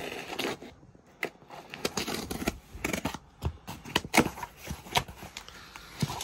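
Delivery packaging being opened by hand: irregular crackling, sharp clicks and rustling of wrapping and cardboard.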